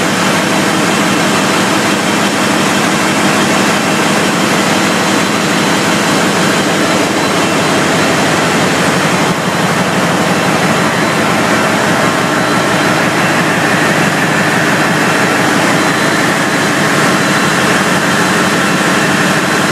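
Large turbocharged MAN multi-cylinder diesel engine running steadily on test: a loud, even roar with a high steady whine on top, which grows stronger near the end as the turbocharger air intake comes close.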